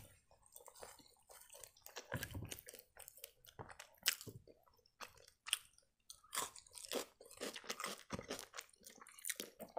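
Quiet close-up chewing of raw yellow bell pepper strips: short crisp crunches at irregular intervals.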